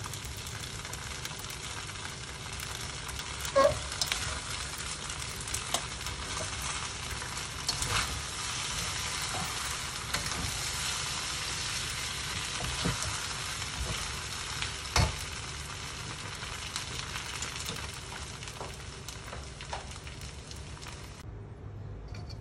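Flat rice noodles sizzling and frying in a hot steel wok as they are stir-fried, with a metal utensil clanking and scraping against the wok now and then; the loudest clanks come a few seconds in and about two-thirds through. The sizzle cuts off suddenly about a second before the end.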